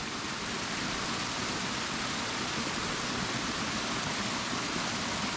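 A small waterfall and a rocky mountain stream rushing steadily over boulders.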